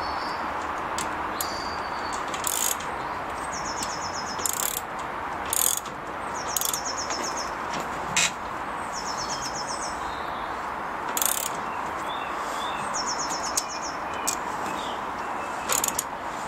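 Scattered sharp metal clicks and knocks of the washing machine's motor pulley nut being tightened with a spanner, over a steady hiss. A short, high, rapidly pulsed bird trill repeats every few seconds in the background.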